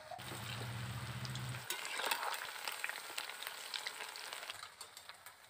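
Cauliflower pakoras deep-frying in hot oil in a wok: steady sizzling with sharp crackles, loudest in a burst about two seconds in.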